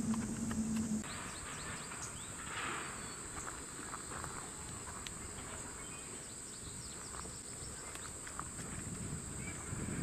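Steady high-pitched drone of an insect chorus, with scattered faint clicks and short chirps over it. A low steady hum cuts off about a second in.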